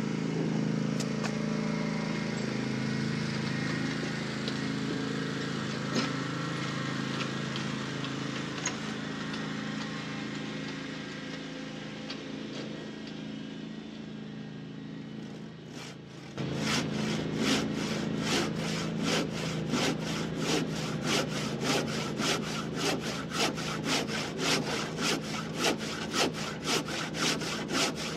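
Hand saw rip-cutting down the cheek of a tenon in a timber rafter, in steady back-and-forth strokes about two a second, which start abruptly a little past halfway and are the loudest sound. Before that a riding lawn mower's engine runs steadily and slowly fades.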